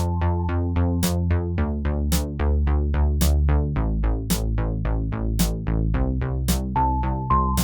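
Upbeat electronic background music with a drum-machine beat: quick repeating plucked notes, about four a second, over a steady bass line.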